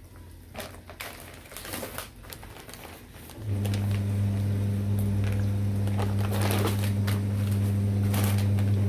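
Light rustling and crinkling of plastic packaging, then about three and a half seconds in a steady low electrical hum starts suddenly and keeps going, louder than the rustling, with a few more brief crinkles over it.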